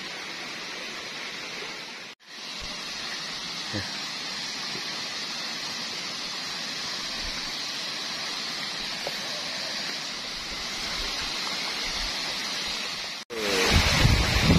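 Steady rushing of a tropical waterfall and its rocky stream. It cuts off abruptly twice, and near the end it becomes much louder and fuller, with a deep rumble, as the sound is heard from the foot of the falls.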